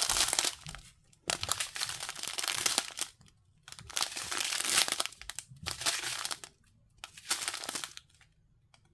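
Small plastic bags of diamond painting drills crinkling as they are handled, in about five bursts with short pauses between.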